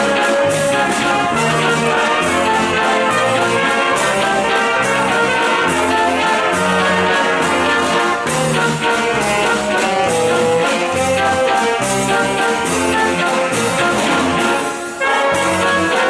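Brass and wind band playing: saxophones, trumpet and flute holding melody and chords over a snare drum beat. The music thins out briefly about a second before the end, then the full band comes back in.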